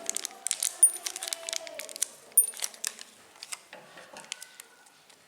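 Irregular clinks and taps of small hard objects, tablets and compounding tools knocking on hard pharmacy ware, while tablets are compounded by hand. Dense for about three seconds, then sparser and fainter.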